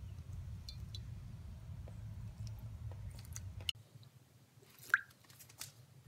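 Water poured from a drinking glass onto potted cacti: faint small crackles and wet ticks over a low hum. The hum stops abruptly a little past halfway, leaving scattered small clicks.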